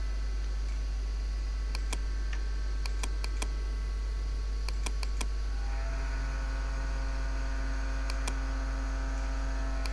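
Computer mouse clicks, about a dozen in small quick runs, over a steady low electrical hum. A second steady hum made of several tones comes in about six seconds in.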